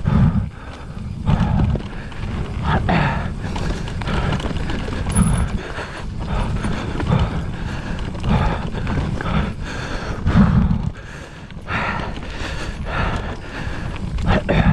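Enduro mountain bike ridden fast down a rough downhill trail: tyres on dirt and rocks with a constant rattle and knock of the bike over bumps and roots, under a heavy, gusting wind rumble on the microphone.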